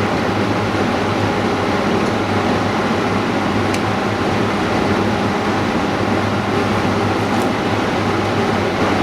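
Steady machine hum and hiss from running refurbishing equipment, with a few faint ticks.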